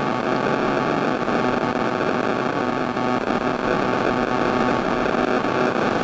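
Several racing outboard motors running together in the distance, a steady mixed engine drone with a noisy hiss over it.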